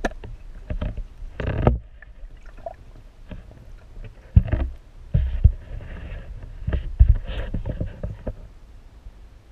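Muffled water sloshing with irregular knocks and thumps, picked up by a camera held under the surface as a chain pickerel is released by hand.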